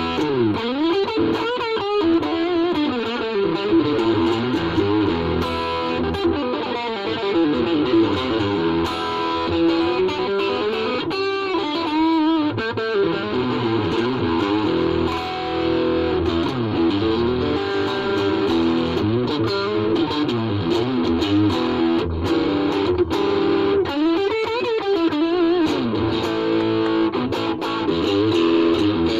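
Ibanez RG350DX electric guitar played through a Vox Soundbox Mini amp: a continuous run of notes with frequent string bends that slide the pitch up and down.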